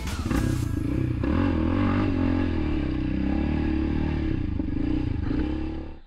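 Yamaha Raptor 700 ATV's single-cylinder four-stroke engine, with an HMF aftermarket exhaust, running under changing throttle on a trail ride, its pitch rising and falling.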